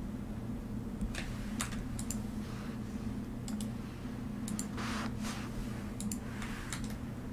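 Irregular sharp clicks and a few brief rustles, about a dozen in all, starting about a second in, over a steady low hum.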